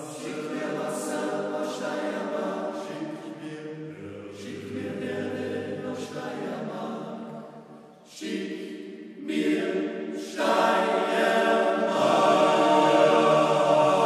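Male voice choir singing a cappella. The singing drops nearly away about eight seconds in, then returns and grows louder over the last few seconds.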